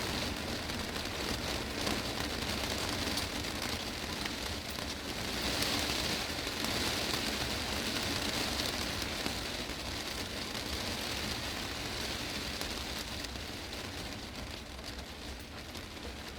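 Heavy rain drumming on the glass roof of a greenhouse, a dense patter of drops that swells a little midway and eases slightly near the end.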